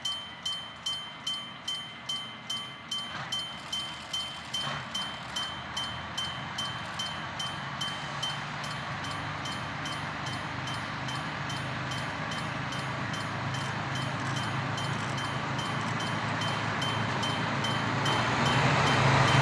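An old-style electric-bell level crossing bell ringing with rapid, even strikes, about two and a half a second. From about eight seconds in, the DD350-class diesel locomotive's engine and the train's running noise grow steadily louder as it pulls out toward the crossing, burying the bell.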